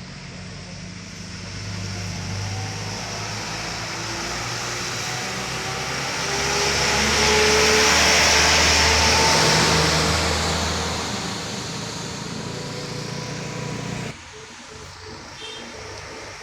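A motor vehicle passing close by: engine rumble and tyre noise grow louder to a peak about eight seconds in, then fade away. The sound drops off suddenly near the end.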